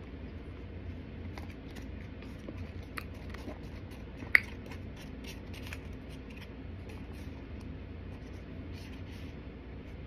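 Plastic spoon scraping and clicking against a clear plastic takeout container as food is scooped out, with one sharp click about four seconds in.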